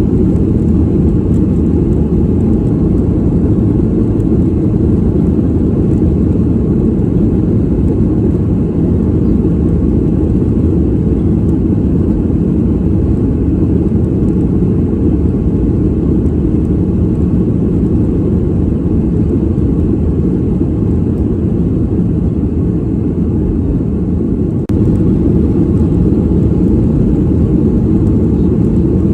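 Airliner cabin noise as heard from a passenger seat: a steady, loud, low rumbling drone from the engines and the airflow, with a brief dip and a small jump in level just before 25 s.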